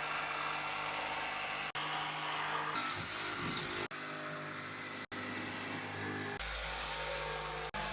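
Power tool running steadily while working wood, broken by a few abrupt cuts.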